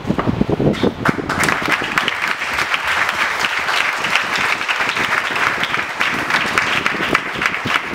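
Audience applauding, the clapping swelling about a second in and then continuing steadily.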